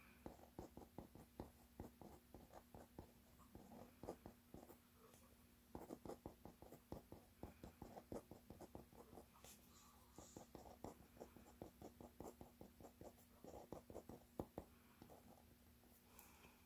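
A pen writing by hand on lined paper: quick, faint scratching strokes, with a short pause about five seconds in, over a low steady hum.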